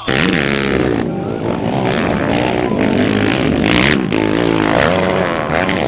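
Several quad bike (ATV) engines racing, revving up and down so the pitch rises and falls repeatedly.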